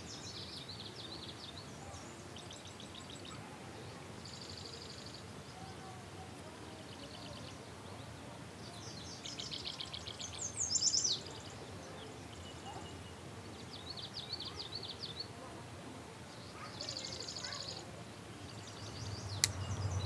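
Songbirds singing short, rapid, high trills every few seconds over a faint steady hiss of outdoor background noise, with one sharp click near the end.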